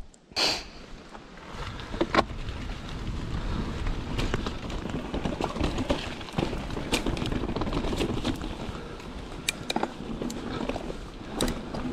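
Santa Cruz mountain bike riding fast down a dirt trail: wind rushing over the microphone, tyres rolling over dirt and stone, and frequent sharp clicks and rattles from the bike over bumps. About half a second in there is a brief loud rub on the camera from the rider's glove clearing mud off the lens.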